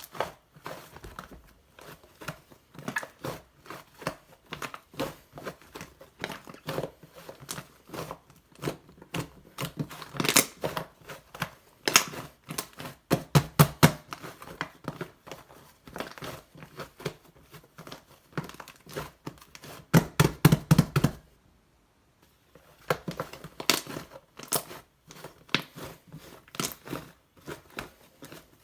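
White, fluffy cloud slime being squeezed and stretched, giving dense, irregular crackling and popping. The crackles get louder around twenty seconds in, then stop briefly before going on.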